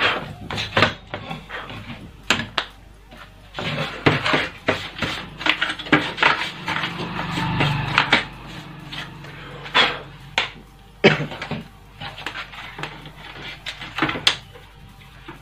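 Clatter and knocks of a CRT television's circuit board and chassis being handled and cleaned, with a stretch of denser scraping noise from about four to eight seconds in.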